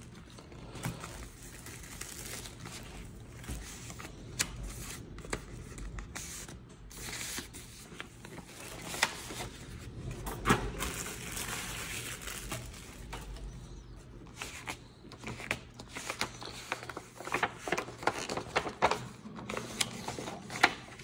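Clear plastic wrap crinkling and a paper sleeve rustling and sliding as a book is unwrapped by hand, with many sharp little crackles that come thickest in a few busy spells.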